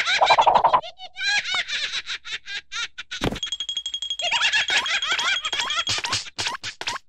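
Cartoon larva character's high-pitched gibberish voice, chattering and giggling in quick syllables. A single thump comes about three seconds in, and a steady high tone is held for a couple of seconds in the middle.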